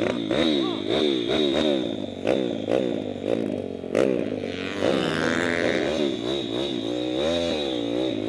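A Piranha pit bike's small single-cylinder four-stroke engine revving hard as the bike gets under way. Its pitch sweeps up and down about twice a second at first, then in slower, longer rises and falls near the end.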